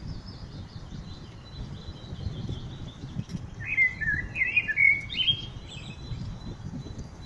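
Wild birds singing: faint high chirps throughout, and one loud, quickly wavering song phrase about halfway through. A steady low rumble lies underneath.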